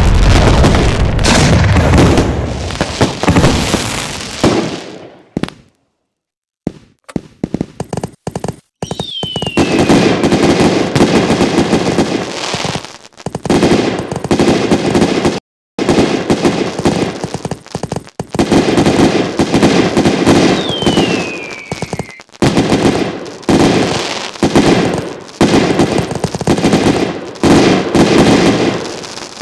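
Fireworks display: heavy booming at first that dies away, then after a short break long rapid strings of bangs and crackling. Twice a whistle falls in pitch over the bangs.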